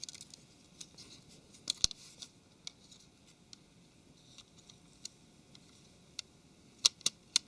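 Plastic-on-plastic handling and small sharp clicks as the Samsung Galaxy S4's plastic rear housing is fitted back over the mainboard. A few scattered clicks come early, then three louder snaps near the end as the housing is pressed down onto the frame.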